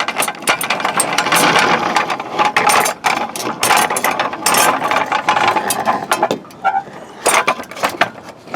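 Rapid, dense ratcheting clicks from a mechanism. They start suddenly, run loud and continuous through the middle, and break into separate bursts of clicks after about six seconds.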